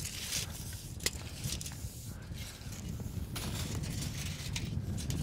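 Tape measure being run out and handled: scraping spells and a few sharp clicks, over a steady low rumble.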